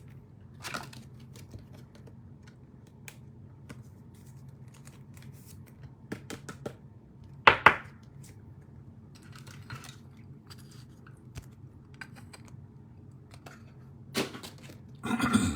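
Trading cards being handled: scattered light clicks and rustles of card stock, with two sharp clicks about halfway through and a brief louder rustle near the end, over a low steady hum.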